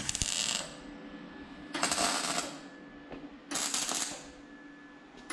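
MIG welder arc crackling and spitting as tack welds are laid on thin, rust-eaten car body sheet metal: three short bursts, each under a second, with a fourth starting at the very end.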